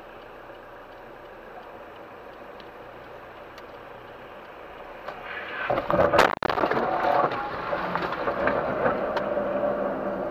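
Steady road noise from a car on a wet road. About six seconds in comes a loud crash as the car collides with another car. Louder road and traffic noise follows.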